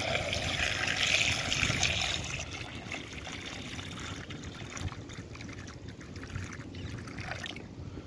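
Water pouring from a plastic bottle into a small plastic tub packed with stones, splashing and trickling. It is loudest for the first two seconds or so, then goes on more quietly as the tub fills.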